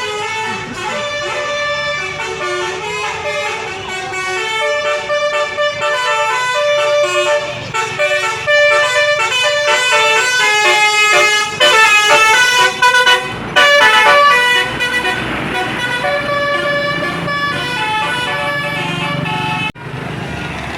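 Basuri telolet bus horn, a multi-trumpet musical horn, playing a tune of quick, changing notes. It is loudest about twelve to fourteen seconds in and cuts off suddenly near the end.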